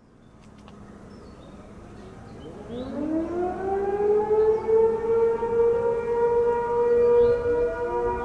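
Several outdoor tornado warning sirens sounding for a monthly test. They wind up one after another, their rising tones levelling off into a steady chord of overlapping pitches.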